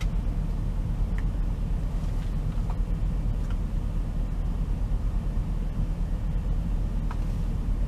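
A steady low engine drone heard inside a semi-truck cab, with a few faint clicks scattered through it.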